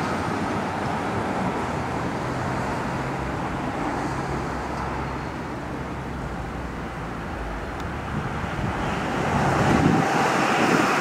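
Roadside traffic noise: a low steady engine rumble, then a vehicle passing close by that swells to its loudest near the end.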